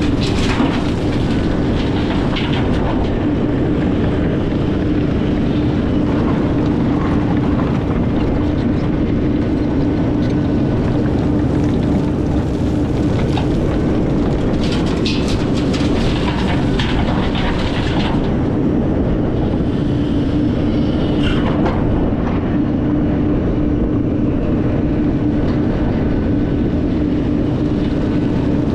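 Takeuchi TB2150 excavator's diesel engine running steadily under working load, with a constant hum. Bursts of scraping and clatter come from the bucket working dirt, most around the middle.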